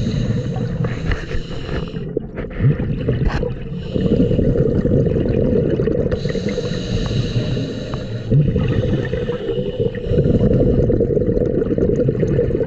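Scuba diver breathing through a regulator under water: a hiss on each breath in and a rumbling, gurgling rush of exhaled bubbles, about three breaths, with a few small clicks a couple of seconds in.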